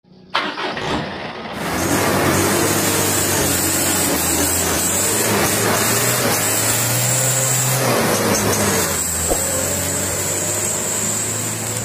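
A heavy truck engine running loudly: a dense, steady rushing noise over a low hum that starts abruptly and keeps going without a break.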